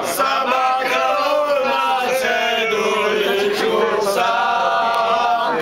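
Men singing together a cappella, holding long notes in harmony.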